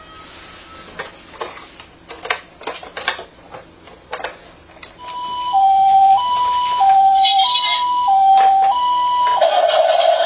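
Plastic clicks and knocks of a toy being handled, then a toy emergency vehicle's electronic two-tone siren: a loud hi-lo alternation, about 0.6 s per note. Near the end it switches to a different, buzzier sound.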